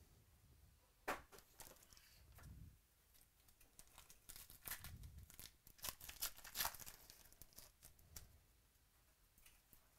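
Wrapper of a basketball trading-card pack being torn open and crinkled by hand: quick crackling tears, a sharp one about a second in and a run of them between four and seven seconds in.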